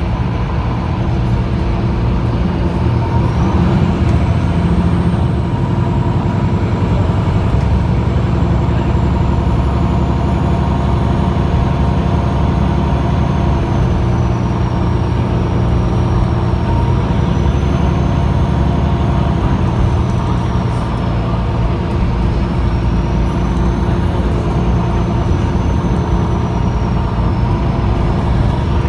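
Onboard sound of a MAN NL323F city bus with a MAN D2066 six-cylinder diesel and ZF EcoLife automatic gearbox, pulling away and running along at a steady pace. A faint high whine climbs about four seconds in, then drifts up and down with road speed.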